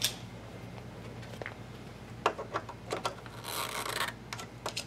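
Hands working a loose wire connection inside a spindle drive cabinet: a few light clicks and knocks, with a brief scraping rub about three and a half seconds in. A low steady hum runs underneath.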